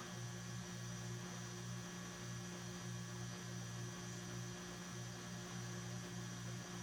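Low, steady electrical hum with a faint background hiss, its lowest tone wavering about twice a second.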